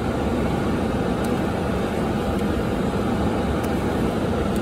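Steady hum inside a car cabin from the running engine and air-conditioning fan, with a few faint clicks.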